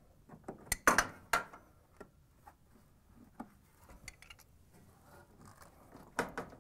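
Metal clicks and clatters from pliers and a spring hose clamp being fitted on a washer's rubber tub-to-pump hose: a quick cluster of sharp clicks about a second in, faint taps and rubbing after, and another clatter near the end.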